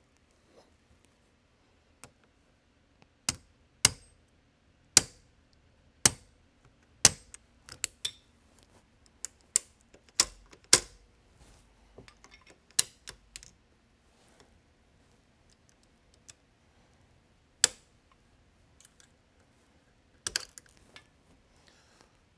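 Steel parts of an MG08 Maxim gun lock clicking and snapping as the lock is worked by hand. The sharp metallic clicks come irregularly, about one a second with a few close pairs, then a short cluster near the end.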